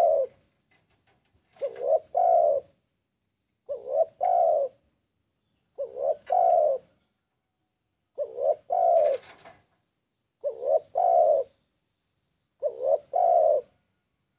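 Spotted dove cooing: a two-part call, a short note followed by a longer one, repeated about every two seconds.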